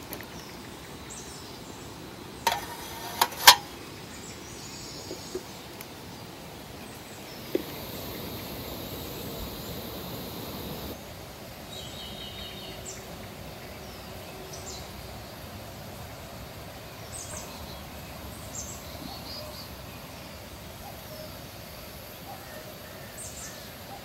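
Quiet forest ambience with small birds chirping now and then. About three seconds in come three sharp clicks close together, likely metal camping gear being handled.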